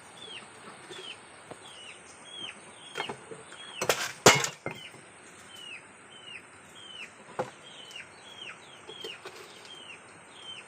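A bird repeating a short, falling chirp about twice a second, with a brief loud clatter of knocks a little under four seconds in and a few single clicks.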